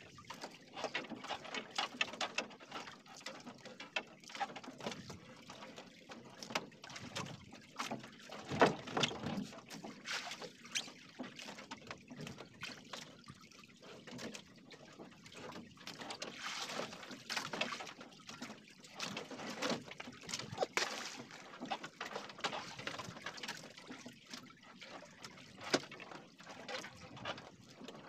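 Water lapping and sloshing against the hull and outriggers of a drifting outrigger boat, with irregular small splashes and knocks and no engine running.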